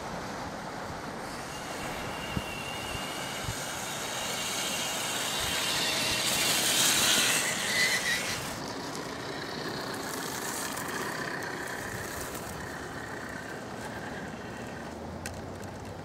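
Traxxas TRX-4 RC rock crawler's electric motor and gearbox whining as it drives over dry leaves and dirt, rising to its loudest about six to eight seconds in.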